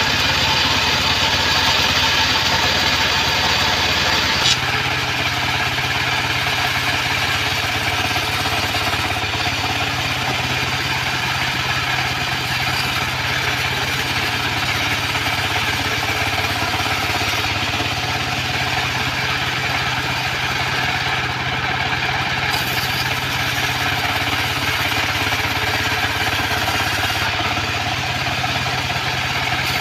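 Stationary engine running steadily, driving a homemade band sawmill. The sound changes abruptly about four and a half seconds in, then settles into a steady low hum.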